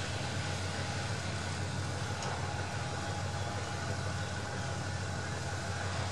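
Diesel-electric locomotive of a shunting freight train running steadily at low power: a constant low hum with a thin steady whine above it, as the container wagons roll slowly.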